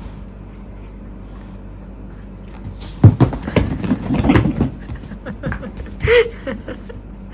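Dog eating its dinner from a bowl: a sharp knock about three seconds in, then a run of quick clicks and scrapes, with a short high sound near the end.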